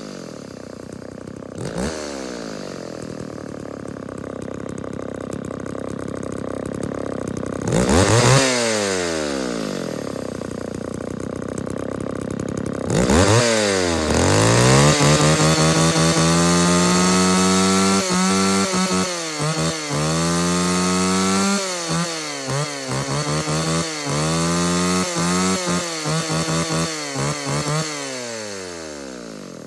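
A John Deere two-stroke chainsaw running: it idles, is revved briefly twice, then is held at high revs for several seconds before a run of quick throttle blips and a drop back to idle.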